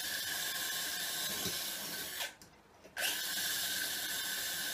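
Power drill running at a steady speed with a high whine, drilling rivet holes through an aluminum corner bracket into laminated wood. It stops a little over two seconds in and starts again about a second later.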